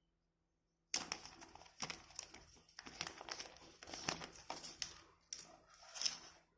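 Plastic packaging crinkling and rustling as it is handled, with many irregular sharp clicks and crackles starting about a second in.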